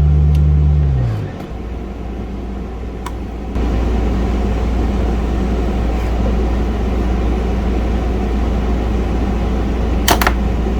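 Background music fading out about a second in, leaving a steady low hum with a few light clicks and a louder click near the end.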